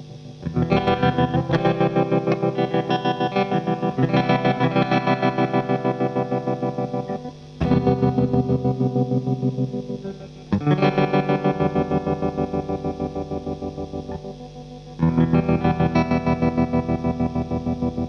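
Electric guitar chords played through a Tonepad Pulsar tremolo pedal, a build of the 1970s Electro-Harmonix Pulsar. Five chords are strummed, and each rings out with a rapid, even throb in its volume from the pedal's tremolo.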